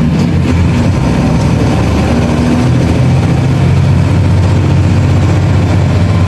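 A converted bus's front-mounted engine running steadily while driving, heard inside the cabin together with road noise. The cabin is not yet sealed or sound-insulated, so the engine comes through plainly.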